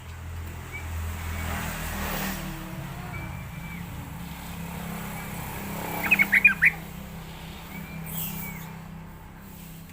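Yellow-vented bulbul giving a quick burst of chattering notes about six seconds in, with faint short whistled notes repeating every few seconds. A steady low rumble, like distant traffic, runs underneath.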